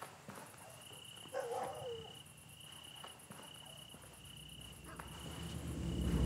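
Night ambience of crickets chirping in a steady pulse a little more than once a second, over a faster, higher-pitched insect trill. A short wavering call comes about a second and a half in, and a low rumble builds near the end.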